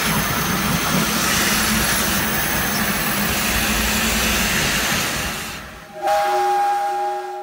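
Steam locomotive hissing steadily with a low rumble. About six seconds in, after a brief drop, its steam whistle sounds a steady chord of several held tones.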